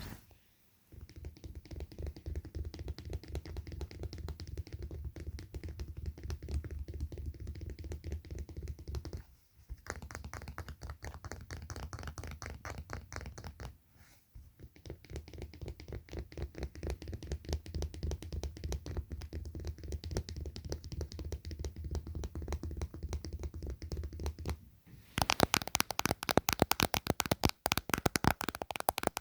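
Rapid, continuous finger tapping for ASMR, with brief pauses about nine and fourteen seconds in. About twenty-five seconds in, the taps turn sharper and louder.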